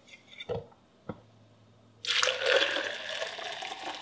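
Two light knocks, then about halfway through a hot cocoa mixture begins pouring from a stainless steel saucepan into a plastic blender cup in a steady stream.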